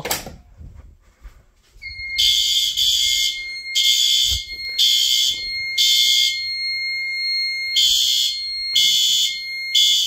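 Fire alarm horn strobes sounding in alarm after a manual pull station is activated, starting about two seconds in. The horns blast in groups of three with a short pause between groups, the temporal-3 evacuation pattern, over a steady high-pitched tone.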